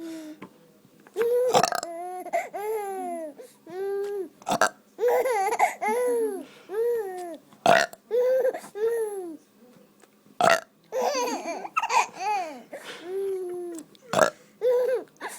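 A man making fake burps, short and sharp, about every three seconds, and a baby answering each one with high-pitched laughing squeals.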